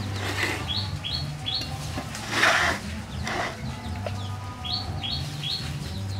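Cleaver scraping over a whole fish on a wooden chopping block, a few short rasping strokes, the loudest about two and a half seconds in. Small birds chirp in quick runs of three, near the start and again near the end.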